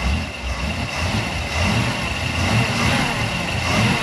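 Newly built 350 cubic-inch Chevy V8 marine inboard idling with an uneven low throb and a thin steady whine over it. The owner judges it to be running rich, with the idle needing adjustment.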